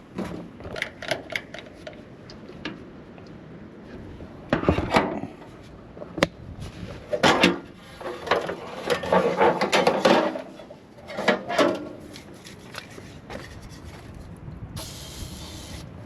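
Irregular clunks, knocks and scraping of hard objects being handled by hand, loudest in a few bursts through the middle, with a short hiss near the end.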